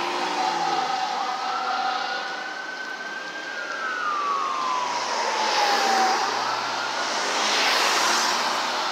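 Fire engine's wail siren, one tone sliding slowly up and down, fading away after about six seconds. Nearby cars pass with a rush of tyre noise in the second half.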